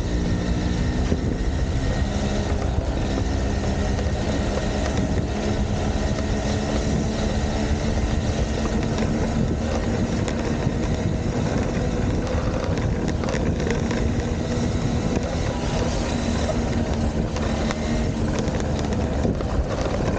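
A vehicle engine running steadily, its hum drifting slightly in pitch, under a constant rumble of wind on the microphone.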